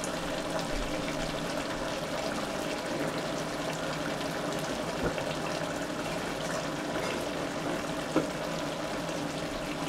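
Chili simmering in a cast-iron Dutch oven on a hot burner: a steady bubbling sizzle. A single small click about eight seconds in.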